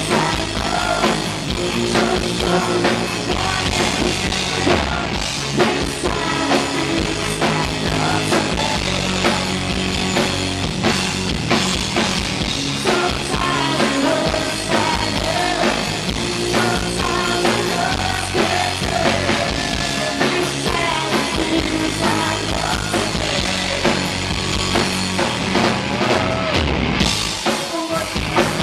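Live hard rock band playing, with a male lead singer over electric guitar and a drum kit. It is recorded through a pocket camcorder's built-in microphone and sounds rough.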